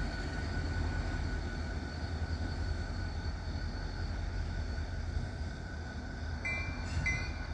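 EMD SD40-2 diesel locomotive's 16-cylinder two-stroke engine running with a steady low rumble as the light engine move goes by. Near the end a short high beep starts repeating, about twice a second.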